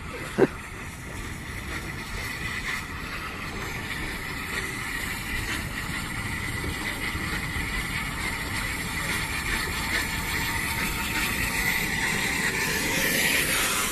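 Bulleid light Pacific steam locomotive moving slowly beneath, giving a steady hissing rumble that grows gradually louder toward the end.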